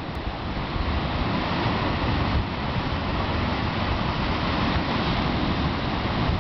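Ocean surf breaking against rocks and washing through a rocky gap as a steady, rushing wash of water, with wind buffeting the microphone in a low rumble.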